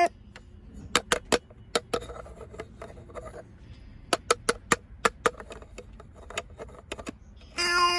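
Hard plastic shapes clicking and clacking against a shape sorter toy, a dozen or so sharp taps, in two clusters. Near the end comes a loud steady electronic tone about half a second long.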